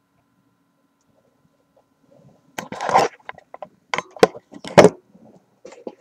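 Handling noise as the camera is picked up, moved and set down on fabric: a couple of quiet seconds, then rustling with several sharp knocks and bumps, the loudest two about four and five seconds in.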